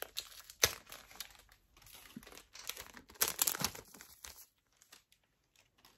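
Small resealable plastic bag crinkling and rustling as it is opened and handled, with a few sharp clicks; the rustling dies away after about four and a half seconds.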